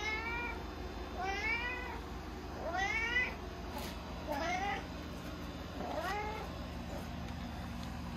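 A tabby-and-white domestic cat meowing five times, about one call every one and a half seconds, each call bending up and then down in pitch.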